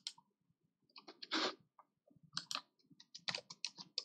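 Computer keyboard typing: scattered single key clicks, then a quicker run of keystrokes in the last second or so.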